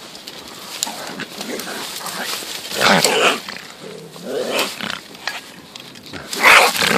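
A bobcat caught in a leghold trap growling and hissing in defensive bursts at a catch pole. The bursts are loudest about three seconds in and near the end.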